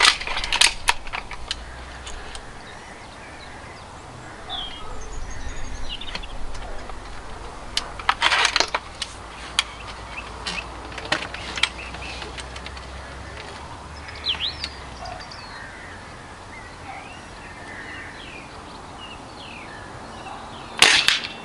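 Remington Warhawk .22 break-barrel spring-piston air rifle being cocked and loaded between shots. There are metallic clicks and clacks as the barrel is broken near the start, and a cluster of clacks about eight seconds in as it is handled and snapped shut. Birds chirp in between, and the rifle fires with a sharp crack just before the end.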